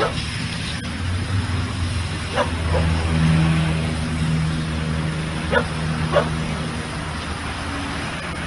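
A dog giving short, sharp yips, five in all and mostly in pairs a fraction of a second apart, over a steady low hum.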